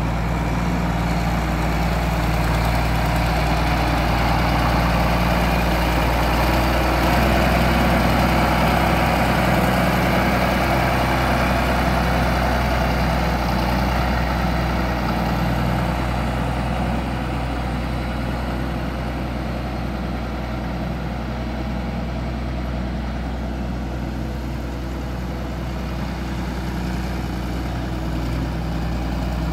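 John Deere 4630 tractor's turbocharged six-cylinder diesel running steadily at low speed as the tractor drives around, growing louder as it comes close and easing off a little as it pulls away.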